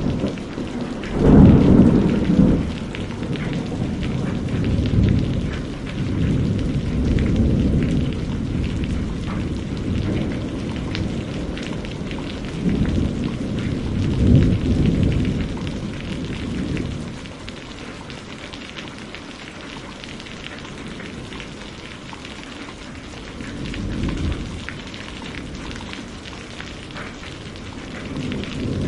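Steady rain with rolls of thunder rumbling several times, the loudest about a second in and another swell near the end.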